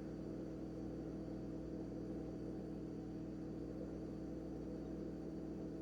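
A steady low hum made of several held tones, unchanging throughout, with nothing else over it.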